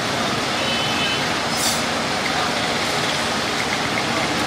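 Steady roadside traffic noise, an even rumble and hiss of passing vehicles, with a brief faint high tone about a second in.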